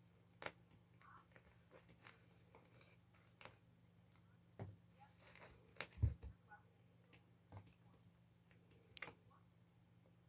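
Two-month-old kittens play-fighting on carpet: scattered soft taps and scuffs of paws, with a dull thump about six seconds in as one pounces and lands.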